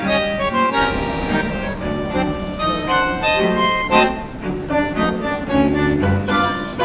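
Background music with a reed instrument such as an accordion playing a melody over regular bass notes.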